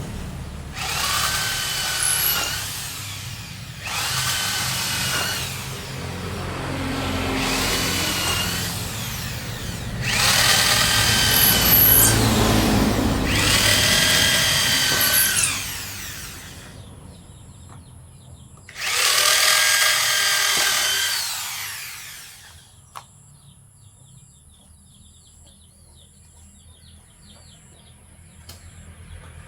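Handheld electric power tool on wood, run in about six bursts of one to three seconds each, its motor whining over the rush of the cut, then quiet for the last several seconds.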